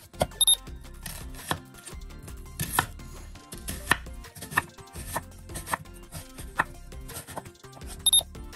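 Kitchen knife slicing a peeled onion into thin wedges, each stroke cutting through and knocking on a bamboo cutting board, about two strokes a second.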